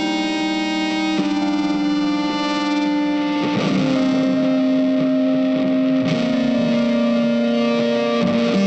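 Background music: a sustained, effects-laden electric guitar holding long notes that change every second or two.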